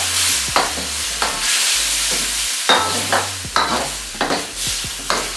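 Stirring in a karahi of kabab curry on the heat: repeated scrapes and knocks against the pan every half second or so, over the sauce sizzling.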